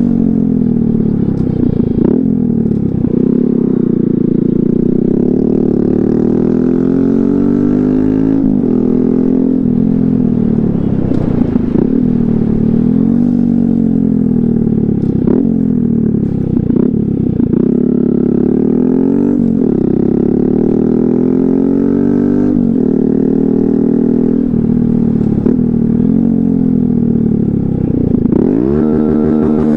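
Honda Grom's single-cylinder 125 cc engine pulling the bike along, its pitch climbing and then dropping again and again as it accelerates and changes gear, with short clicks at many of the changes. Near the end it revs up quickly.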